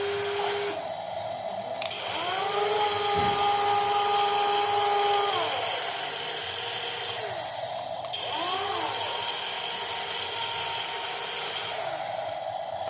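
Whine of the small electric motors and gearboxes of a metal RC construction model at work. A high whine rises about two seconds in, holds for about three seconds and winds down, and another rises and falls shortly after eight seconds.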